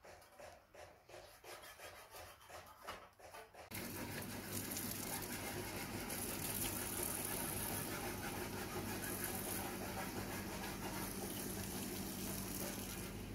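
Faint regular ticking at about three a second, then a motor starts running about four seconds in: a steady drone with a low hum.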